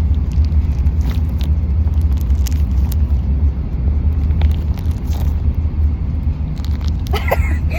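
Steady low rumble of a car cabin on the move, with a few faint scattered clicks and rustles.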